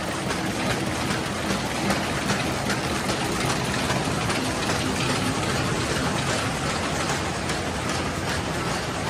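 ZNEP F450QB full-servo paper bag machine running at production speed: a steady mechanical clatter with repeated light ticks from its rollers and cutting and forming sections.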